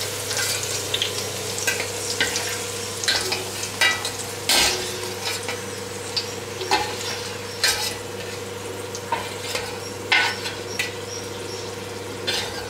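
Hot ghee sizzling in a steel pan while fried raisins are scooped out and stirred with a metal slotted spoon, the spoon scraping and clinking against the pan at irregular moments. A steady low hum runs underneath.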